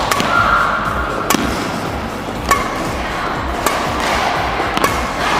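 Badminton rally: a shuttlecock struck by rackets with sharp cracks about once a second, five times, over hall noise with short squeaks.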